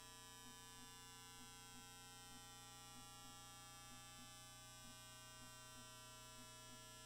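Near silence: a faint steady electrical buzz with many overtones, with soft faint ticks about two or three times a second.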